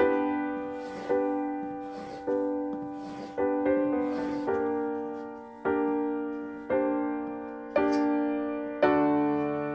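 Slow, gentle background piano music, a note or chord struck about once a second and left to fade.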